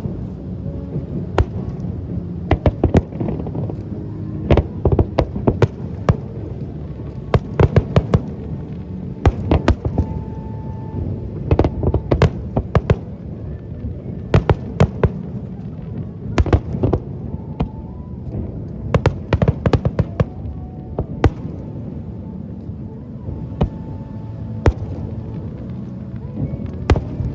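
Aerial fireworks bursting: many sharp bangs, singly and in quick clusters, all through, over a steady low background rumble.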